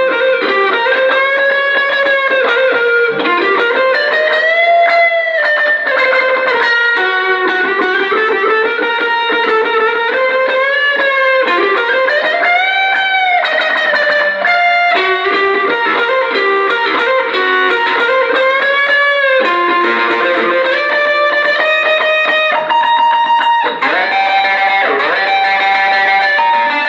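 Electric guitar played through an Orange Crush 35 combo amp fitted with a Jensen MOD10-50 10-inch speaker: a lead line of sustained single notes with string bends and vibrato.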